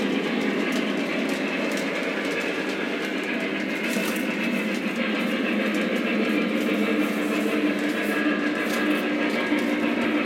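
Lionel Vision Line CC2s 0-8-8-0 O-gauge model steam locomotive running on the layout, a steady rolling rumble with light clicks from the track. A low hum joins about six seconds in.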